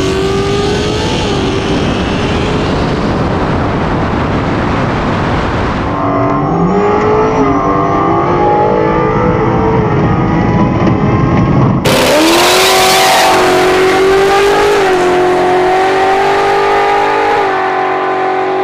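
Drag race run: a nitrous-equipped Fox-body Mustang's engine at full throttle, rising in pitch through the gears and then holding a steady high note down the track. The sound changes abruptly twice.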